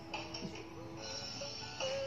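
Music: held melodic notes that glide from one pitch to the next.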